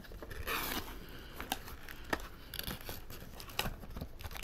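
Packaging being handled and unpacked by hand: crinkling and rustling, with a brief rustle about half a second in and scattered sharp clicks and taps.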